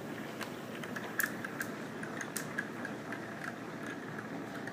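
Tornado-in-a-bottle device running on its fourth setting, spinning the water: a steady whir with scattered small clicks and crackles.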